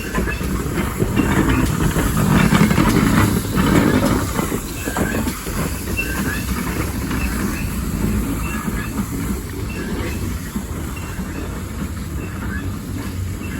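Steam-hauled train of a small prairie tank engine going past: loudest early on as the engine passes, then the carriages rolling on with a rhythmic clickety-clack over rail joints and short high wheel squeaks.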